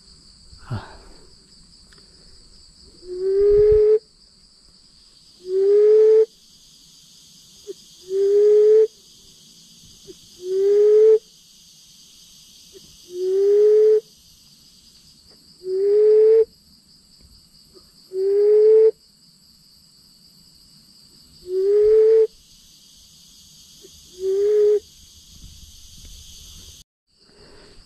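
Mouth-blown reed decoy call for emerald doves: nine low hooting notes, each about a second long and rising slightly, repeated about every two and a half seconds. A steady high insect hum runs beneath and stops near the end.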